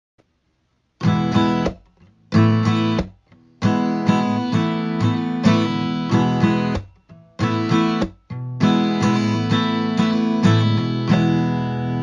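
Intro theme music: guitar strumming chords in short stop-start phrases, the last chord left ringing.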